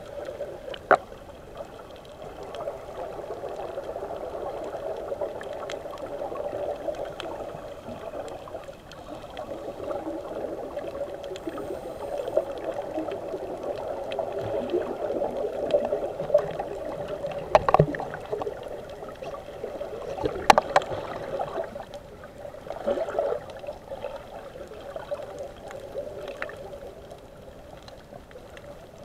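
Muffled underwater bubbling and gurgling from scuba divers' exhaled air, heard through a waterproof camera housing. A few sharp clicks come about two-thirds of the way through.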